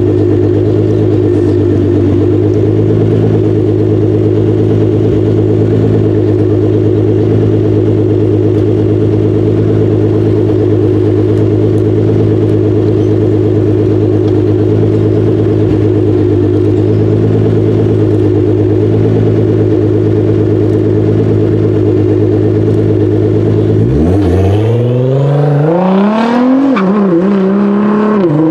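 Nissan GT-R engine holding a steady, unchanging drone for most of the time, then near the end revving up hard, its pitch climbing steeply with a couple of brief drops along the way.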